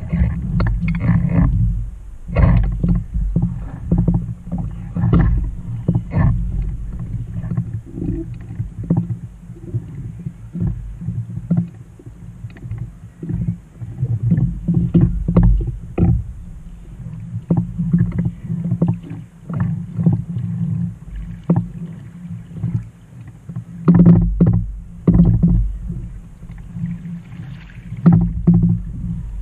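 Double-bladed paddle strokes splashing, with choppy water slapping against the bow of a Trak kayak. Wind rumbles on the microphone throughout.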